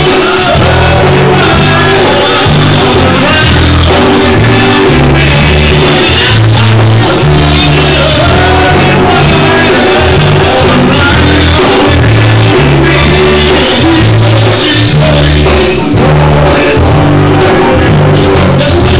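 Live rock band playing loud, with a lead singer over a heavy bass line that moves from note to note.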